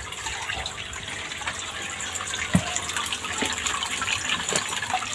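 Water running steadily into a fish pond, with a few faint ticks in the flow.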